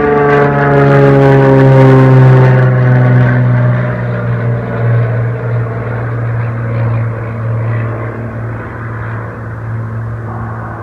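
A passing engine drone whose pitch falls over the first few seconds, loudest about two seconds in, then holds steady at a lower pitch.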